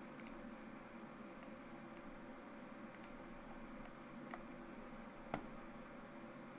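Computer mouse clicking now and then: a handful of short, sharp clicks, the loudest a little past five seconds in, over a faint steady room hum.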